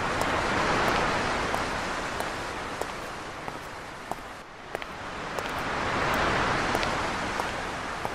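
A hissing, rain-like rush that swells and fades twice, with a sharp tick about every two-thirds of a second.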